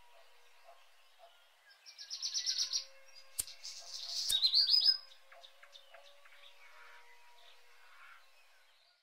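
Birds chirping, with two loud runs of rapid, high chirps about two and four seconds in over fainter scattered calls. Two sharp clicks fall between them.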